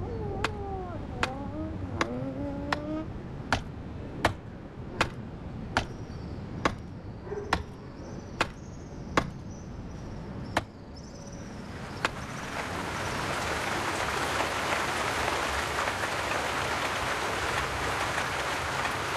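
Sharp ticks at a steady pace of a bit more than one a second, with a cat mewing over the first few seconds. About twelve seconds in, rain begins and swells into a steady downpour.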